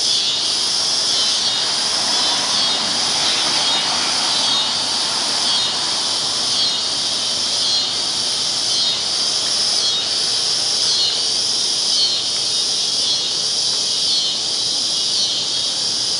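A loud chorus of cicadas buzzing, a high drone that pulses about once a second, building up.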